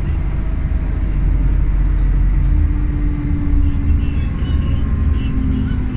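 Cabin noise inside a Nova Bus city transit bus: a steady low rumble of drivetrain and road, with a faint whine above it in the middle.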